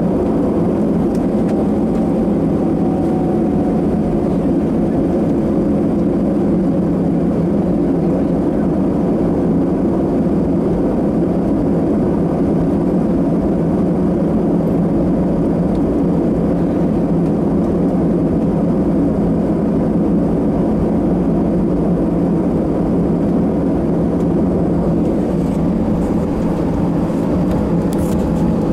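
Steady cabin noise of an Airbus A319 taxiing after landing: its jet engines run at low thrust under a constant dull rumble, heard from inside the passenger cabin.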